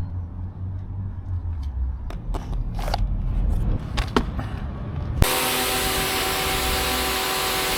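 A few clicks and knocks over a low rumble, then about five seconds in a Muc-Off electric pressure washer starts up: a steady motor hum with the loud hiss of its water jet.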